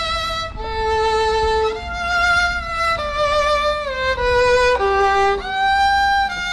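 Solo violin playing a slow melody of long held notes with vibrato, stepping to a new note about once a second.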